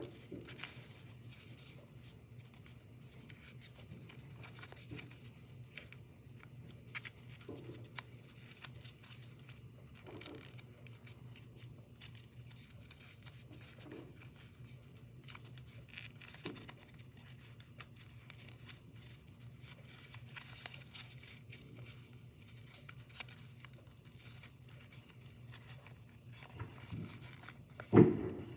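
Origami paper rustling and creasing in the hands as its folded flaps are pinched and pressed, faint scattered crinkles over a low steady hum. A single louder thump near the end.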